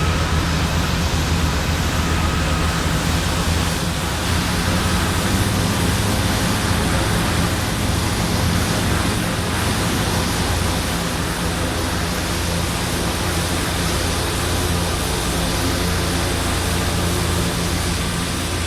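Strong wind blowing over the microphone: a steady rushing noise with a heavy low rumble that does not let up.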